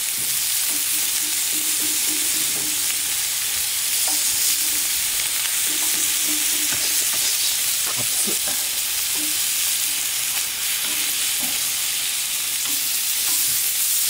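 Steak sizzling steadily on a hot iron griddle, with a few light clicks of metal utensils against the pan about halfway through.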